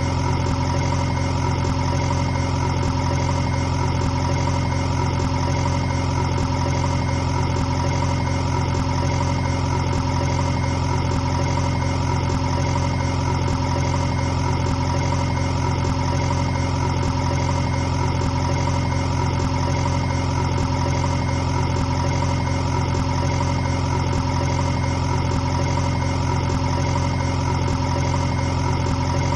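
An engine running steadily at idle, one even drone with no change in speed.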